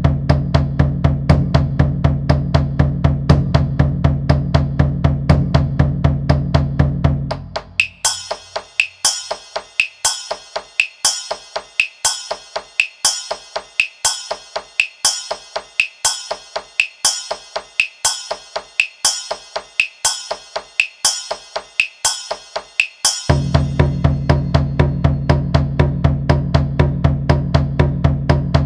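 Ensemble of large drums in the taiko style, played in fast, even strokes with a deep booming resonance. About eight seconds in the big drums stop, leaving sharp, bright, ringing strikes at about one and a half a second over faint quick ticks. The full drumming comes back in near the end.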